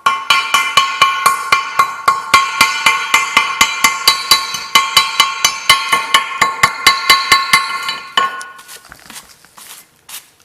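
Steel being struck rapidly with a hammer, about four blows a second, each leaving a ringing metallic tone, typical of chipping slag off a fresh stick weld; the blows thin out near the end.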